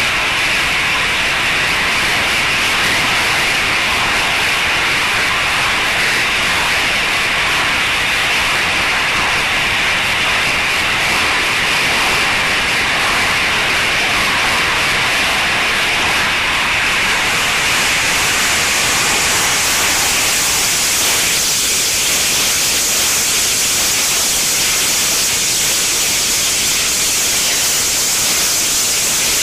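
Rocket engine firing: a steady, loud hiss of its exhaust jet. About 17 seconds in the hiss turns brighter and harsher.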